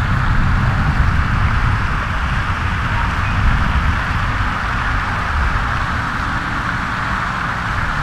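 Outdoor background noise: wind rumbling and buffeting on the microphone over a steady, even hiss.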